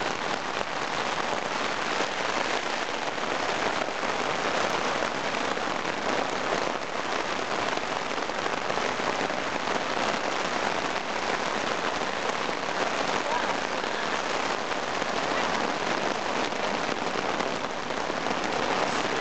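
Rain falling steadily on a tent's fabric flysheet, heard from inside the tent.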